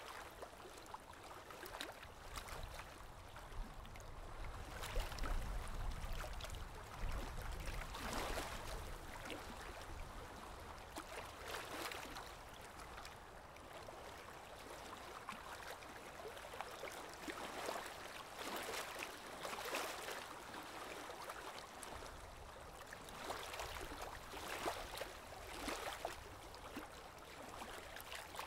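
Running water, like a stream or gentle surf, a steady rush that swells and eases every few seconds, with a low rumble about five seconds in.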